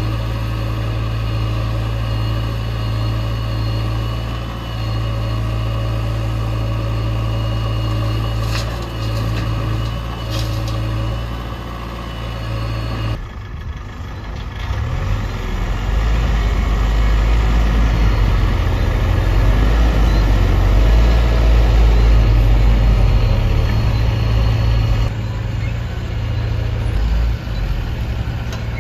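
JCB backhoe loader's diesel engine running steadily. About halfway through, the sound changes abruptly to a deeper, louder rumble, which eases again near the end.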